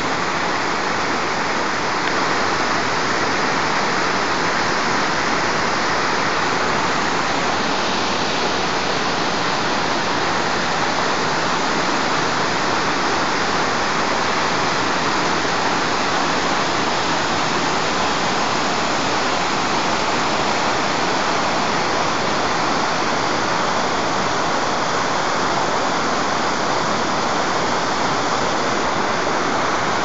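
A waterfall cascading over rock ledges: a loud, steady, even rush of falling water.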